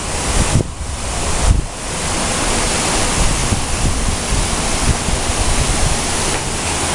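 Strong storm wind blowing, buffeting the microphone with low rumbles in the first second and a half, then settling into a steady loud rush.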